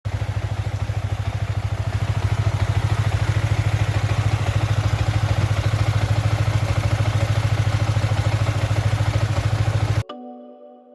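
Yamaha Vixion R 155 motorcycle engine idling with a steady, even pulse. It cuts off suddenly near the end, leaving faint sustained musical tones.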